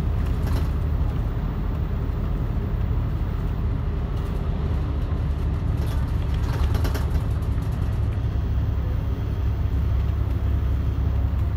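Volvo D10A-285 diesel engine of a Volvo Super Olympian double-decker bus running under way, a steady low drone heard inside the cabin. Brief rattles come near the start and again about six seconds in.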